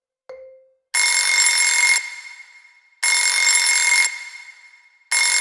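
One short mallet-like countdown tone, then an alarm bell ringing in one-second bursts every two seconds, three times: the timer has run out.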